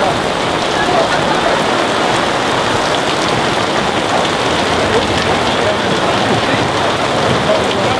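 Heavy downpour: a loud, steady hiss of rain pouring down during a cloudburst.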